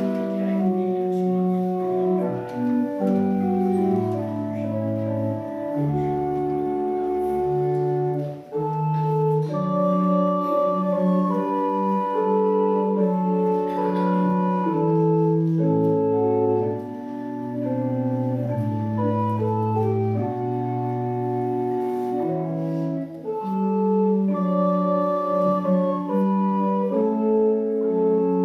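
Church organ playing the opening prelude: slow held chords over a moving bass line.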